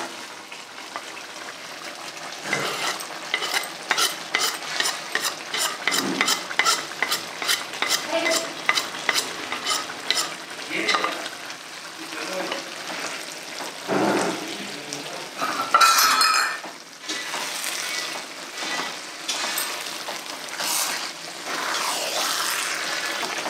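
Spatula stirring a thick eggplant masala in a metal kadai over the flame, a steady sizzle under repeated scraping strokes against the pan. The strokes come quickly in the first half, and one louder scrape rings out about 16 seconds in.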